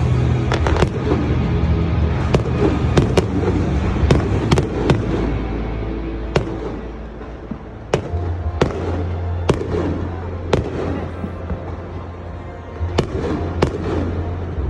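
Fireworks going off: a rapid string of sharp bangs, thinning to about one bang a second midway, then a quick cluster of bangs near the end.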